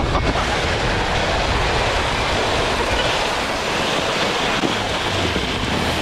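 Sled sliding fast over snow: a steady, rough scraping rush with a low rumble.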